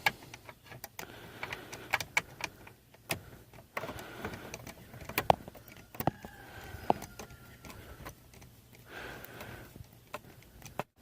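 Screwdriver turning out the small screws that hold a car's turn signal switch on the steering column: irregular clicks, ticks and light rattles of metal on plastic, with a couple of faint brief squeaks.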